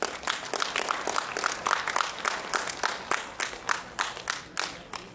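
Audience applauding: a burst of clapping that starts suddenly, with a few single claps standing out, and thins out and dies away near the end.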